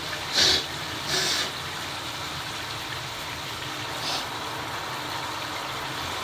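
Shower water running steadily, with two short, sharp nasal bursts of breath through the nose about half a second and a second in, and a fainter one around four seconds in.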